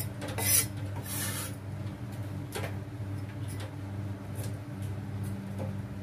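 Cleaver blade scraping chopped cabbage across a wooden chopping block: two short rasping sweeps in the first second and a half, then a few light taps, over a steady low hum.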